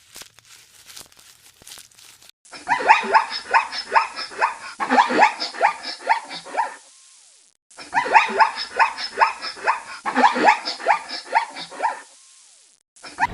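An animal giving a rapid series of short, barking calls, several a second, in a run of about five seconds that comes again after a short break.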